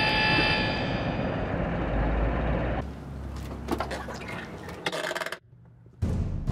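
Steady road-traffic noise with a high squeal fading out in the first second and a half. After about three seconds it drops to quieter clicks and knocks as a van's passenger door is opened, then a short near-silent gap, and a loud low rumble sets in near the end.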